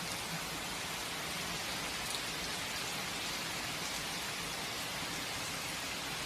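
Steady rain falling and pattering on surfaces, an even hiss with a few faint individual drop ticks.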